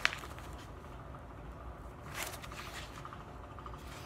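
Rolled diamond painting canvas and its paper and plastic cover sheets being handled: a sharp tick right at the start and a short rustle about two seconds in.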